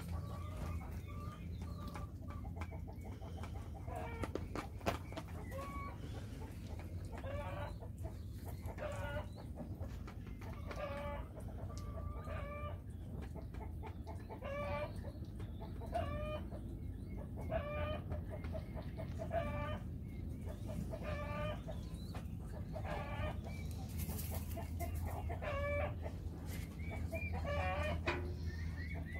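Chickens clucking off-camera: a long run of short, pitched calls, roughly one a second.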